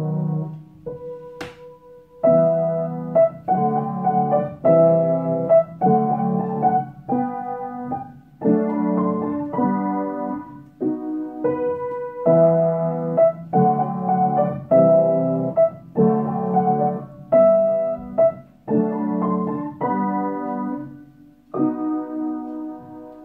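Background piano music: chords struck in an even, unhurried rhythm, with a quieter stretch of held notes and a single click about a second and a half in.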